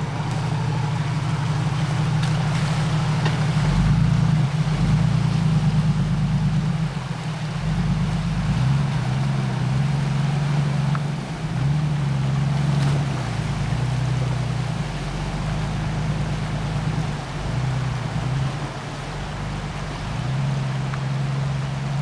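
Jeep Cherokee XJ engine pulling under load through a rushing river, its pitch rising and falling with the throttle, over a steady rush and splash of water around the wheels.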